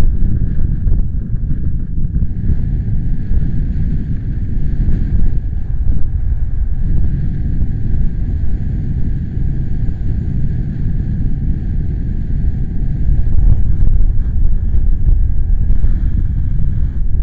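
Strong wind buffeting the microphone, a loud, gusting low rumble with a fainter hiss above it.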